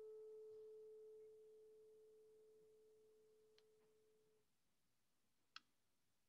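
A single steady ringing tone, fading away and dying out about four seconds in, followed by two faint clicks.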